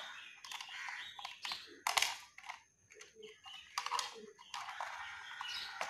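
Small screwdriver scraping and clicking against the terminal screws of switches on a switch board, with light handling of the wire, and a sharp click near the start and another about two seconds in.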